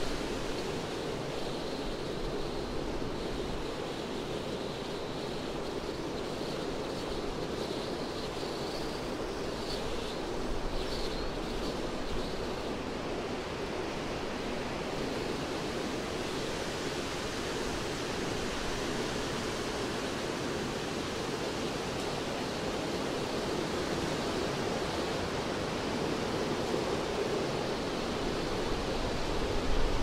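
Wind blowing through a forest canopy: a steady rushing noise through the tree crowns, growing a little louder near the end.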